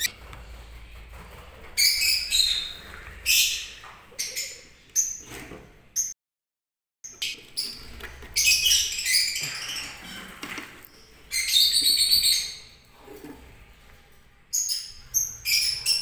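A colony of lovebirds calling, with shrill chirps and squawks coming in repeated bursts.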